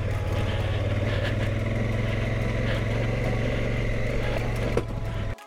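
Large adventure motorcycle engine running steadily at low speed while riding a loose, rocky gravel track. A sharp click comes near the end, and the sound cuts out abruptly at the very end.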